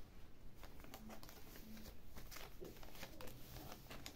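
Faint rustling and soft taps of paper as the pages of a handmade junk journal are handled and turned.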